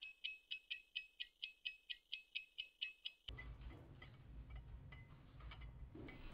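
Clock ticking fast and evenly, about four to five sharp, high ticks a second, stopping suddenly after about three seconds. A low steady room hum with a few faint clicks follows.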